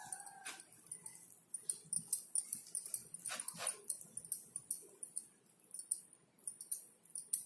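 Fingers squishing and smearing a thick, wet masala paste around a plate: a string of soft squelches and sticky smacks. A brief high whine sounds at the very start.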